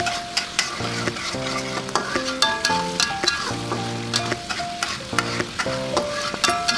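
Chili paste sizzling in hot oil in a wok while a metal spatula stirs and scrapes it, with frequent sharp clicks of the spatula against the pan. A light instrumental melody plays underneath.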